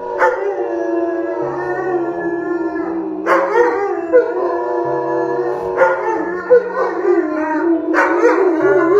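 A dog howling in four long, wavering calls as it greets its owner, over background music.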